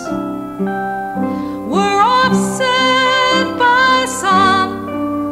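Slow, tender song: a singer's voice over piano accompaniment.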